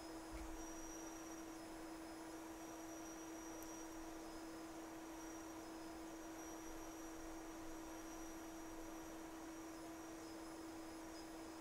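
Steady electrical hum from the repair-bench equipment, a single low tone with faint high whines above it that shift pitch now and then.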